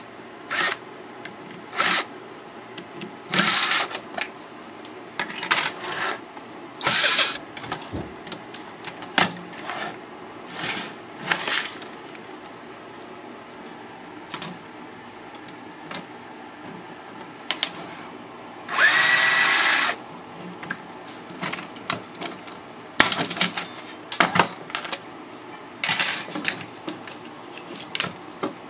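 Cordless power drill/driver run in short bursts, a dozen or so brief whirs with one longer run about two-thirds of the way in, as screws are backed out of a car stereo being taken apart for scrap; small knocks and clatter between the bursts.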